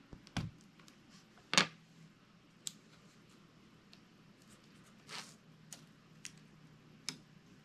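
Small plastic clicks and taps as fingers unplug a laptop cooling fan's connector and lift the fan out of the chassis. The clicks come singly and a second or so apart, the loudest about a second and a half in, with a short rustle near the five-second mark.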